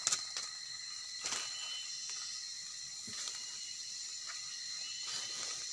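A steady, high-pitched chorus of insects, with a few faint clicks.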